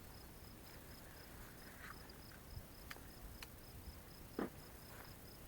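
An insect chirping steadily in a fast, even pulse train, about five chirps a second, faint. A few soft clicks and one louder knock about four and a half seconds in.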